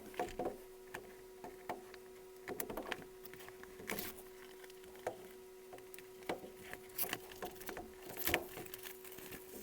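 Packaging being unwrapped by hand: scattered crinkles, taps and clicks of plastic and cardboard, over a faint steady hum.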